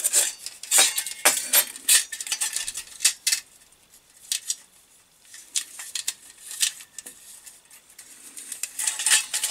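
Nested stainless steel parts of a collapsible wood-burning camp stove clinking against each other as they are handled and packed into a fabric bag. A quick run of clinks in the first few seconds, quieter handling through the middle, and more clinks near the end.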